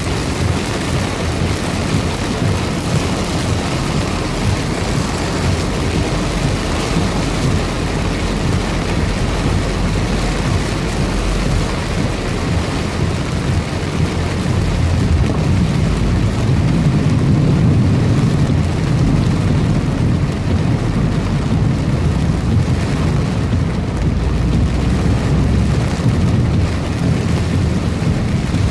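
Heavy rain pouring down steadily. A low rumble swells about halfway through and stays up to the end.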